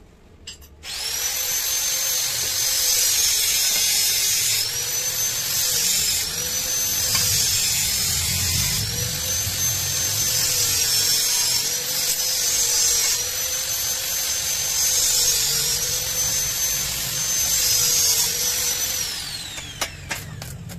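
Electric power tool running at high speed with a high-pitched whine that dips in pitch again and again as it bites into the work and recovers. It starts about a second in and winds down near the end.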